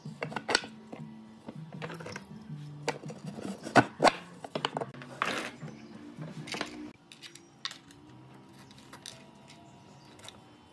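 Sharp metallic clicks and clinks of threaded steel studs and small ball bearings being handled and set on a wooden board, over soft background music. The clinks are dense for about seven seconds, then thin out to a few light taps.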